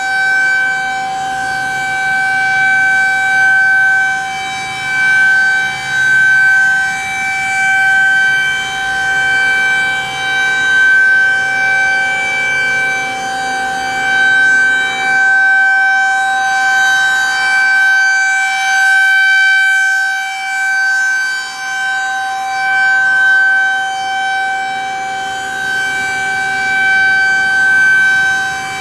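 Federal Signal 2001-SRN rotating electromechanical outdoor warning siren sounding a steady tone at full speed during a siren test. Its pitch holds steady while the loudness swells and fades about every two seconds as the rotating head sweeps past.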